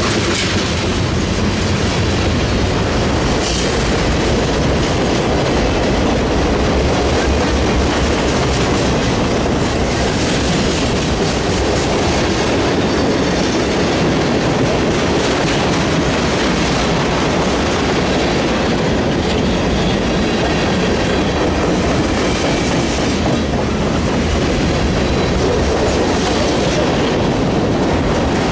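Freight train of tank cars and boxcars rolling past close by: a steady, loud rumble of steel wheels on the rails with clickety-clack over the rail joints.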